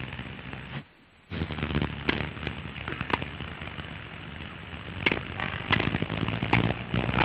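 Crackle and hiss from an old newsreel film soundtrack over a steady low hum, with a scattered sharp click every second or so. The sound drops out briefly about a second in.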